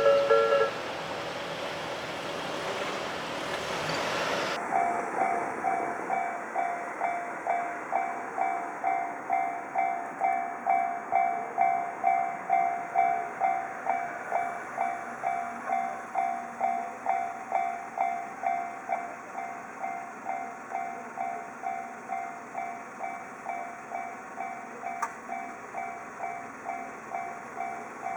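A Japanese railway level-crossing warning bell rings at an even pace, about two strokes a second, each dying away quickly. During the first few seconds a train passes with a steady rushing noise, and an earlier crossing bell stops just under a second in.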